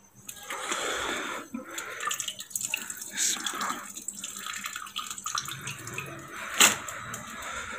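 Wet squelching, splashing and dripping as a hand scoops freshly churned buffalo-milk butter out of buttermilk in a steel pot and squeezes it. A single sharp knock near the end.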